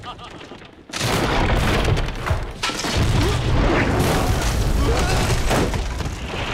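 A sudden loud boom about a second in, followed by a continuous deep rumble full of crackling, which swells again about three seconds in: a blast sound effect, with wood and debris breaking up.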